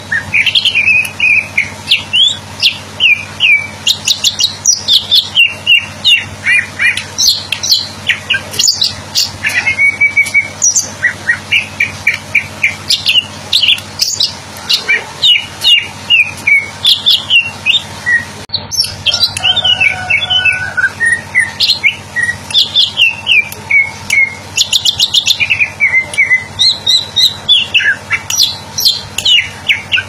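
Male greater green leafbird singing a long, unbroken stream of quick, varied chirps and whistled notes that sweep rapidly up and down in pitch.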